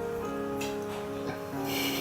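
Background music: a light plucked-string melody of held notes, with a short rustling noise near the end.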